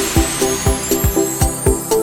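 Electronic dance music with a steady kick-drum beat, about four beats a second, over repeating synth notes.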